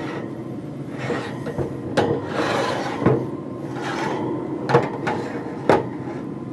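Metal baking sheet being turned on the steel grates of a pellet grill. It scrapes as it slides over the grates, with four sharp clanks spread through the turn.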